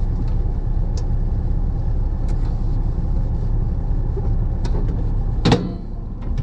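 Steady low rumble of a parked semi-truck's diesel engine idling, heard inside the sleeper cab. Over it come a few light clicks and one sharper knock near the end as cleaning wipes and the cabinet are handled.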